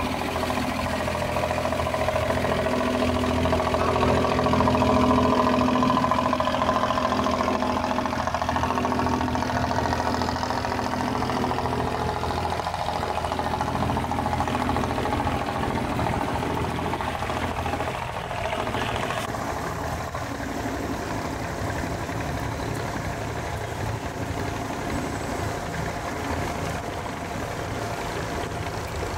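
Wooden abra's diesel engine running steadily with a knocking chug, loudest about five seconds in and then slowly easing.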